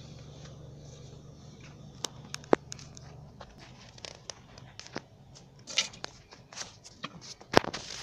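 Car engine hum inside the cabin of a car stopped in traffic, dropping away about three seconds in, with irregular clicks, taps and crackly rubbing of a phone being handled against its microphone, two sharper clicks standing out.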